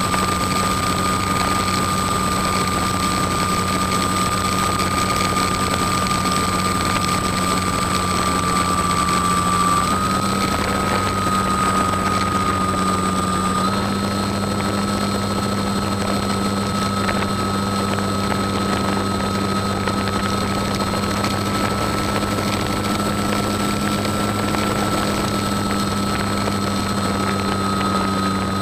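Radio-controlled Cap 232 model plane's motor and propeller running steadily, heard from a camera on the plane, a high whine over a rush of wind; the pitch steps up slightly twice, about a third of the way in and again a few seconds later.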